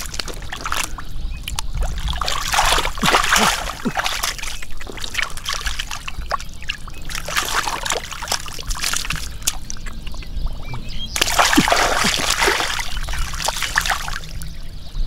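Splashing and sloshing in shallow muddy water as hands grope through the mud for catfish, coming in irregular surges every second or two, the longest and loudest near the end.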